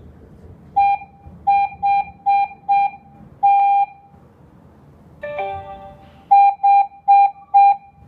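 Alarm control panel's capacitive touch keypad beeping once for each key pressed as a password is entered: a run of short beeps at one steady pitch, then a slightly longer beep. A little past five seconds a different, richer multi-note tone sounds from the panel, followed by four more key beeps.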